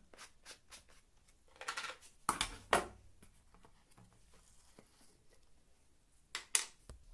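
Lids of a homemade plastic-can thermos being opened by hand: small clicks as the threaded plastic cap is unscrewed, then sharp knocks and clatters as the cap and an inner metal lid are lifted off and set down, about two and a half seconds in and again near the end.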